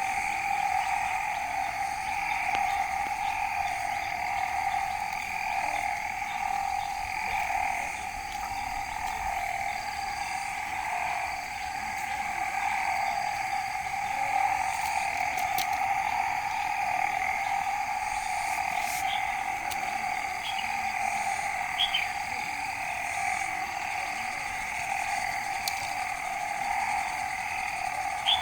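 A steady chorus of calling animals, holding at two pitches, one middling and one higher, with a few faint clicks now and then.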